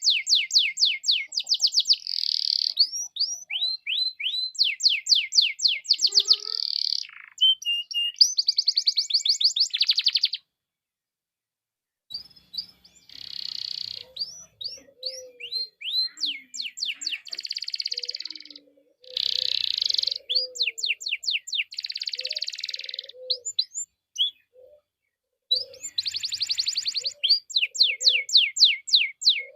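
Domestic canary in full song: long runs of rapid trills and quick falling whistled notes. The song breaks off for about a second and a half about ten seconds in, then carries on in phrases with short pauses.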